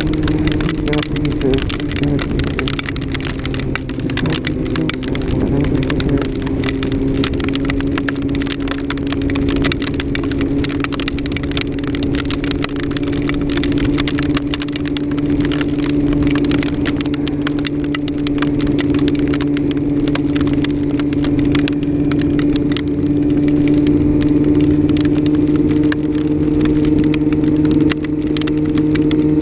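Yamaha R6 inline-four engine running steadily under way, its pitch dipping a little a few seconds in and then slowly climbing. A dense crackle of small hits runs over it, hail striking the rider.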